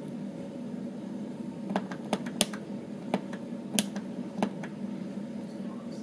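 A quick run of about eight sharp clicks over two and a half seconds, two of them louder, as the chrome knob of a faulty dimmer light switch is handled on its spindle.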